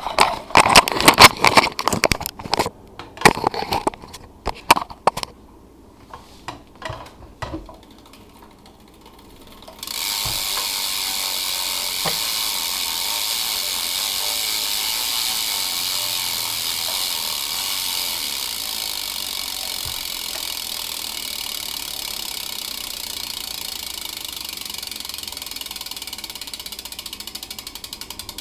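Pawls of a BMX bike's left-hand-drive rear hub clicking as the wheel freewheels. The first few seconds are short irregular bursts of clicks, then fewer. From about ten seconds in comes a fast continuous buzz of clicks that slowly fades, with single clicks starting to separate near the end.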